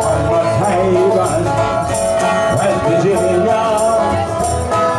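Live bluegrass band playing a song, with banjo, fiddle, guitar and upright bass over a steady beat, and a man singing lead.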